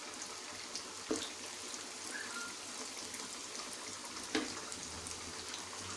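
Dough snacks deep-frying in hot oil on a high flame: a steady sizzle, with two light knocks, one about a second in and one past the four-second mark.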